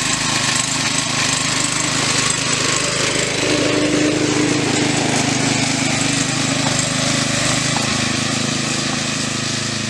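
Small engine of a 7.25-inch gauge miniature locomotive running steadily with a fast, even chugging beat.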